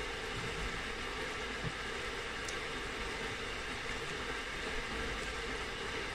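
Steady hiss of a pan of minced meat in tomato sauce simmering over a gas burner, with a wooden spoon stirring it and a few faint ticks.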